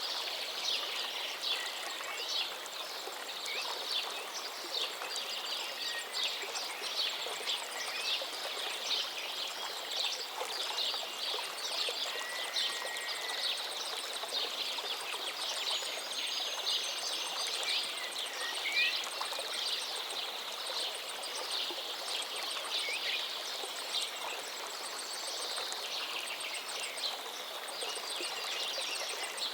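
River water babbling and splashing steadily over stones, with small birds chirping and whistling over it.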